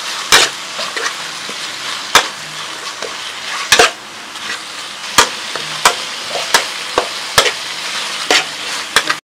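Beef slices sizzling in a metal wok as they are stir-fried, a steady frying hiss broken by about ten sharp clacks and scrapes of a metal spatula against the wok. The sound cuts off suddenly near the end.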